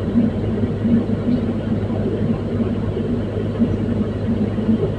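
Komatsu PC210-10 excavator's six-cylinder diesel engine running steadily, a deep even drone.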